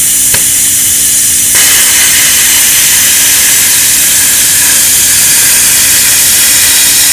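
Air plasma cutter cutting steel sheet: a steady, loud hiss of air and arc that fills out and grows about a second and a half in, as the arc starts cutting through the metal, with a faint steady hum from the machine underneath.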